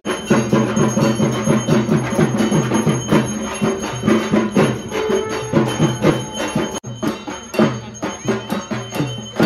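Dhak drums beaten in a fast, steady rhythm, with a momentary break about seven seconds in.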